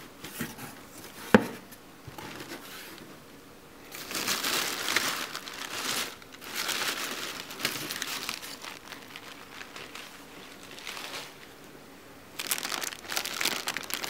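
Crumpled packing paper and wrapping being pulled out of a cardboard box, crinkling in irregular bursts. A single sharp tap a little over a second in is the loudest sound.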